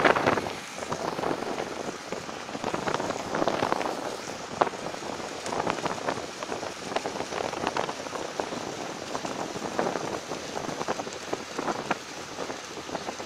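Splashing, crackling water noise from a fishing boat's hull and wake moving through the harbour, swelling and easing irregularly.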